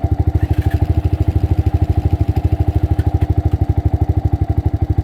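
Honda ATC 250SX single-cylinder four-stroke engine running at a steady idle, an even putter of about a dozen firing pulses a second.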